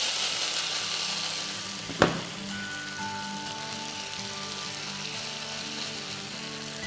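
Grated raw potatoes sizzling in hot fat in a non-stick frying pan. The sizzle is loudest at first and then settles to a steady, quieter frying hiss. There is a single knock about two seconds in.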